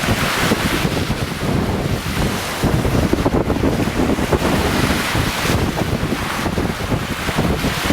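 Wind buffeting the microphone over surf on the sea shore, a steady low rumble with the hiss of waves washing in and out.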